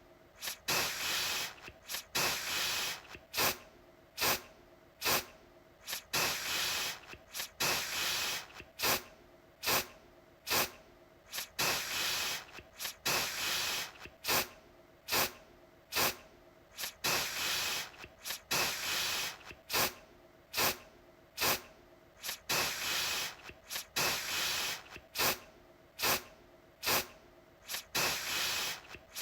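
Aerosol deodorant can being sprayed over and over in short hissing bursts, one or two a second. Quick puffs mix with longer sprays of up to about a second, with short pauses between.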